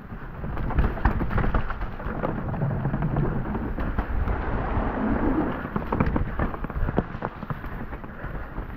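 Mountain bike riding over wooden ladder-bridge slats and a dirt trail: a steady low rumble of tyres broken by many sharp knocks and rattles from the bike.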